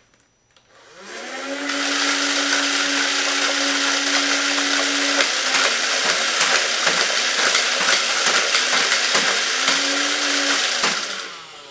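Air Zone Punisher battery-powered toy minigun firing: its motor whirs up about a second in and runs with a steady whine and rapid clicking from the dart mechanism, then winds down near the end.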